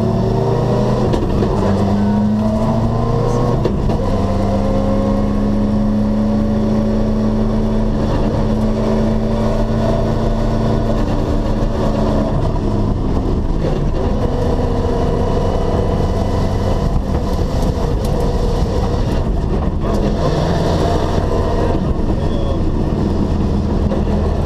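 Rally car engine heard from inside the cabin at full stage pace, revving up and dropping back again and again as it accelerates and shifts through the gears, over steady road and tyre noise.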